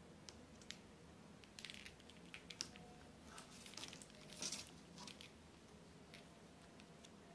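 Faint handling noise of Realme Buds Classic wired earphones: scattered light clicks and short rustles of the plastic earbuds and cable being worked by hand, busiest in the middle and loudest about four and a half seconds in.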